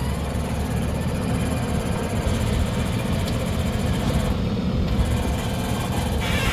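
MST backhoe loader's diesel engine running steadily under load while its hydraulic earth auger drills into the ground.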